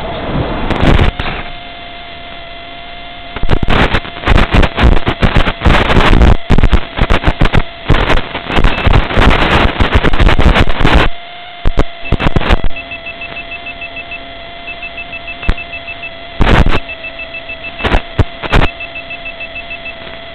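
Onboard audio of a Z84 flying wing coming down into tall grass: loud bursts of crackling and rustling over a steady electrical hum. After it stops, short runs of rapid beeping repeat about every two seconds, with a few sharp knocks.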